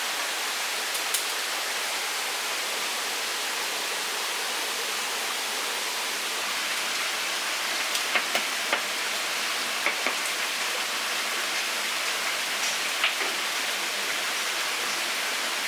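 Steady rush of running water, with a few sharp clicks and taps scattered through it, most of them around the middle and later part.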